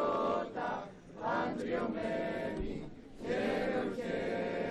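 A choir of voices singing in held, sustained phrases, with short breaks about a second in and again near three seconds.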